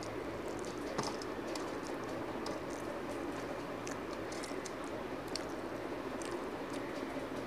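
Close-miked chewing of food by hand: irregular wet mouth clicks and smacks, with one sharper click about a second in, over a steady background hum.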